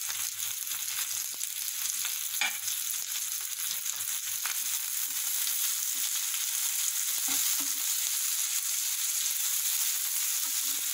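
Sliced onions and tomatoes sizzling in hot oil in a non-stick frying pan as they sauté, with a slotted spatula scraping and tapping against the pan a few times as they are stirred.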